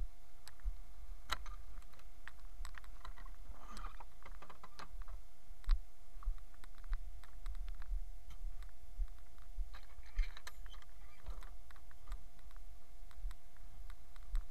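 Loaded BSS 7-tonne manure spreader being towed over snow, its body and fittings rattling in scattered clicks and knocks over a steady low rumble.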